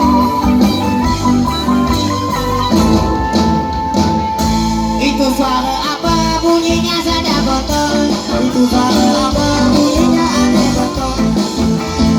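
Live band music with guitar and shaker or tambourine percussion, a wavering melody note held for a few seconds near the middle.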